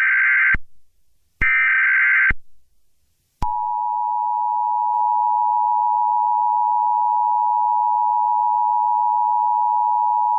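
Emergency Alert System SAME header: two harsh digital data bursts, each about a second long with a short gap between, closing a three-burst sequence. About three and a half seconds in, the steady two-tone EAS attention signal starts and holds, the alert signal that announces a new warning, here a tornado warning.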